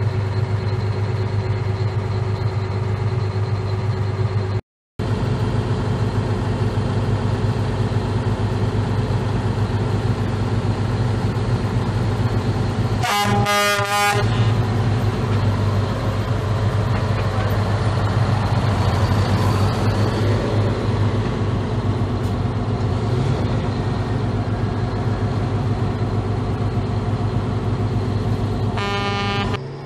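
Heavy truck diesel engines running steadily. A cluster of short air-horn blasts sounds about halfway through, and another air-horn blast comes near the end. The sound drops out for a split second about five seconds in.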